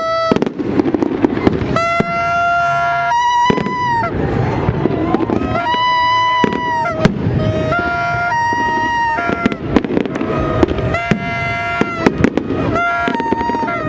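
Fireworks popping and crackling in quick, irregular bangs. Over them, a buzzy pitched tone sounds on and off for a second or two at a time, changing between a few pitches.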